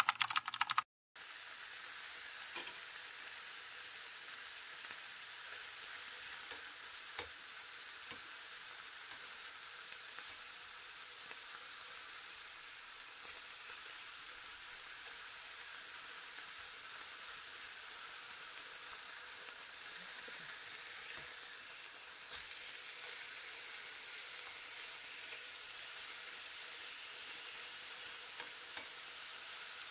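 Slices of beef sizzling steadily as they fry in a nonstick frying pan, with a few faint clicks. About a second of jingle opens it and cuts off into a moment of silence before the sizzling starts.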